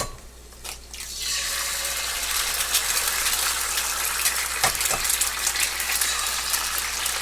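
A hash brown sizzling and crackling in a hot cast-iron pan, the hiss building up about a second in and then holding steady. Two light clicks come about halfway through.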